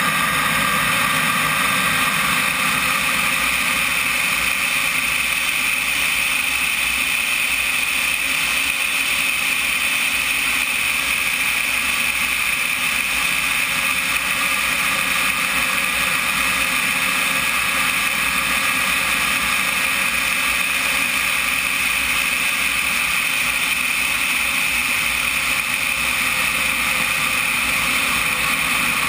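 RC jet model's turbine running at steady power in flight, a constant whine under the rush of airflow, heard from a camera mounted on the airframe.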